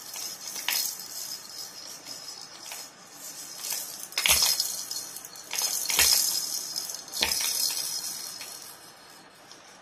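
A baby's plastic rattle toy shaken and knocked, giving irregular short rattling clatters. Three louder strokes about four, six and seven seconds in carry a dull thump, like the toy striking the floor mat.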